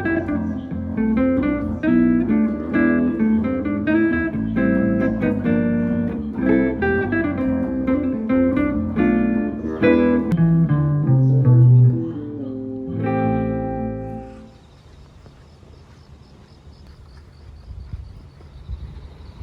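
Background music on plucked acoustic guitar, playing chords and melody notes, with one last chord ringing out before the music ends about 14 seconds in. After that comes only a faint, steady hiss.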